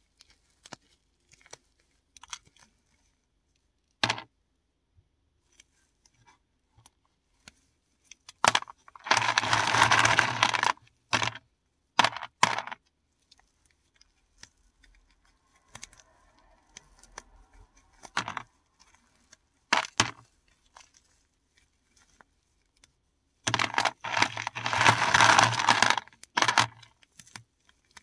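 Paradichlorobenzene mothball tablets being crushed by hand. Scattered sharp clicks of pieces knocking together, with two longer bursts of crunching and crumbling: one about a third of the way in and one near the end.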